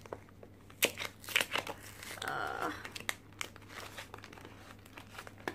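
Crinkling and crackling of a blind-box figure's plastic wrapper, handled and pulled open by hand, with irregular sharp crackles.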